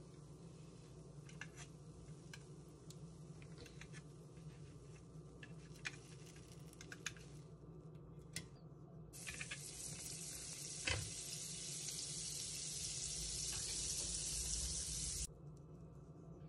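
Light clicks and taps of handling at a mini waffle maker, then about six seconds of butter sizzling on the hot waffle plates, with one sharp knock partway through. The sizzle cuts off suddenly.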